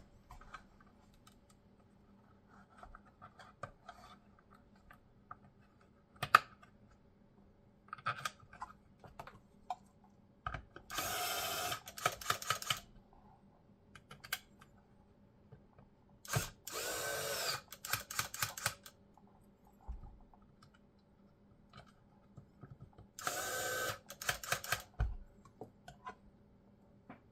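Electric screwdriver driving screws into an Xbox Series X case, three short whirring runs, each ending in a quick series of clicks. Small clicks of handling between them.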